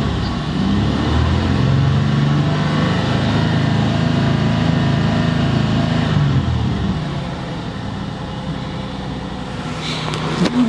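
1999 Ford Explorer's 4.0-litre V6 engine, which is being checked for a misfire, revved up from idle about a second in, held at raised revs for several seconds, then let drop back to a steady idle.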